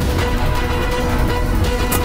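Background film score music with held notes over a heavy low end.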